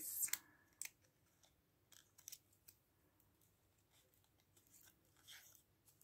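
Faint rustling and scraping of thin paper and card being handled as a tiny folded zigzag book is slid out of its paper pocket and opened out. A brief louder rustle comes at the start, then scattered light ticks and scrapes.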